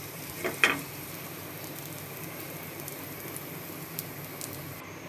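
Hot mustard oil sizzling faintly in a frying pan. A spatula scrapes the pan twice about half a second in while it lifts out fried onion, garlic and chillies.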